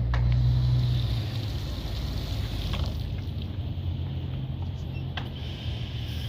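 A machine running with a steady low hum, a little louder for the first second, with a few faint clicks over it.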